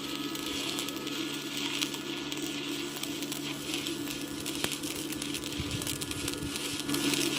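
Electric arc welding: a steady, dense crackle of the arc over a low electrical hum, as a weld bead is run along a pipe joined to a galvanised iron plate.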